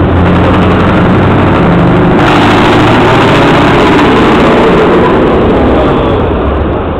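Heavy truck's diesel engine running very loud, with a steady low engine note; about two seconds in it turns into a harsh, dense noise that eases slightly near the end.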